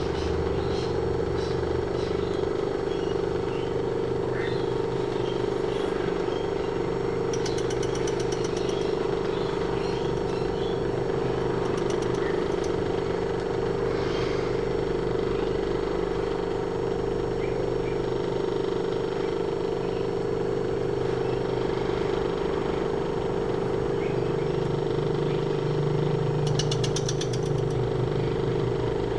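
Small metal lathe running steadily with a constant motor hum while its tool turns a cast-iron cylinder cover held in a three-jaw chuck. A few brief, high, rapidly pulsing bursts come and go over the hum.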